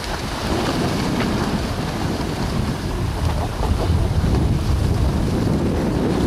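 Wind buffeting the microphone of a camera carried by a moving skier, a steady low rushing with fluttering, over the hiss of skis sliding on groomed snow.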